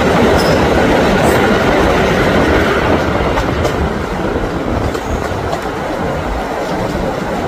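Passenger train carriage running along the track, heard from an open window: a steady rumble and rattle of wheels on rail that grows a little quieter a few seconds in as the train clears a tunnel.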